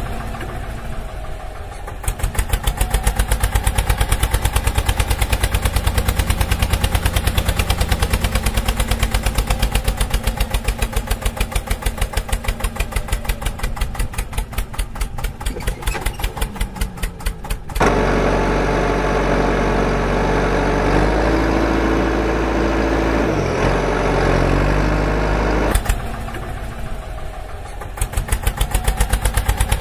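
Tractor engine sound effect: a running engine with a rapid, even thudding beat. About two-thirds of the way through it gives way to a smoother engine note that dips in pitch and comes back up, and the thudding beat returns near the end.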